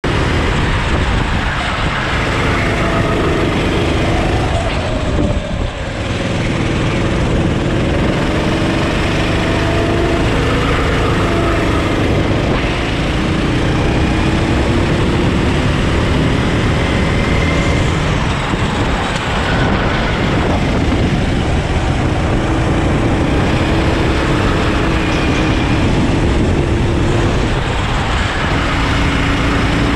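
390cc four-stroke kart engine running at speed, its note rising and falling again and again as the throttle is opened out of corners and lifted for braking, over a steady rushing noise. The loudness dips briefly about five seconds in.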